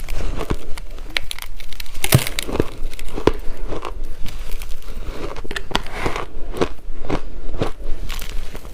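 Shaved ice being bitten and chewed close to the microphone: irregular crunches and crackles, roughly two a second.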